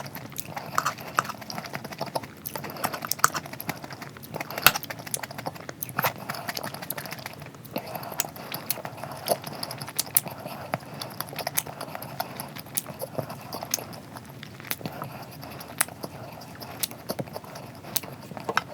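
Close-miked eating sounds: chewing with many irregular sharp crunches and wet mouth clicks.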